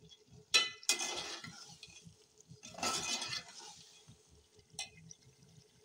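Metal slotted spoon clinking and scraping against a metal cooking pot while stirring pieces of meat: a sharp clink just over half a second in, scraping strokes around one and three seconds in, and another clink near the end.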